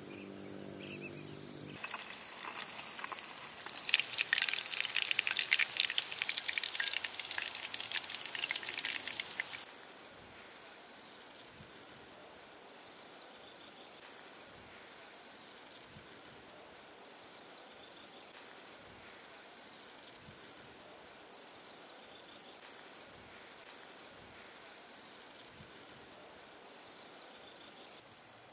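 Oil sizzling and crackling as fish-paste sticks deep-fry, loudest from about two to ten seconds in. After that comes a steady chorus of insects: a high continuous buzz with a chirp repeating about once a second.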